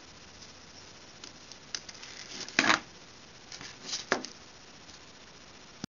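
Handling noise from a hand working right at the camera: a few light clicks, then a loud short scrape about two and a half seconds in and another rustle around four seconds, over a faint steady hiss.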